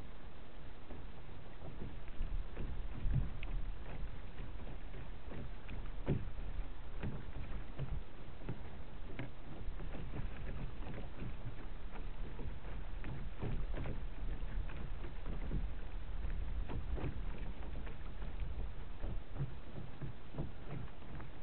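Water lapping and slapping against the hull of a small Alcort Sunfish sailboat under way: irregular splashes over a steady low rumble.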